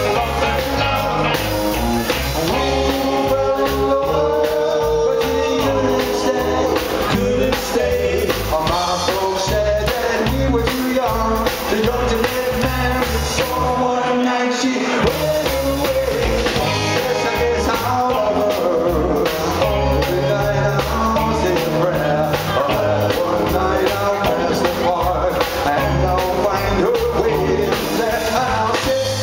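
Live rock and roll band playing: electric guitar, upright double bass and drums, with a sung vocal. The bass and drums drop out for a moment about halfway through, then come back in.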